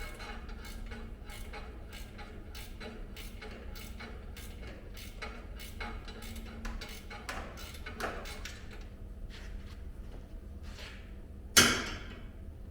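Hand tools and metal parts being worked on a truck: a run of irregular light clicks and ticks, a few a second, over a low hum. A single loud metallic clank rings out near the end.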